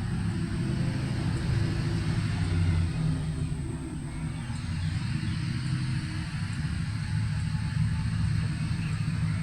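5-inch FPV quadcopter's motors and propellers buzzing in flight, picked up by a microphone mounted on the drone. The low hum rises and falls with the throttle, with a rumble of rushing air.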